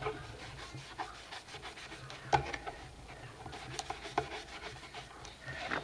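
Hands rubbing and pressing paper flat onto book pages, giving soft paper rustles and scrapes, with one sharp tap about two seconds in.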